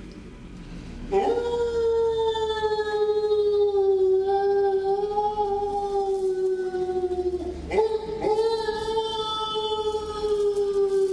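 A ghostly wailing voice, a long wavering 'oooh', comes in about a second in over a low rumble and slowly sinks in pitch. It breaks off briefly about two-thirds of the way through, then starts the wail again.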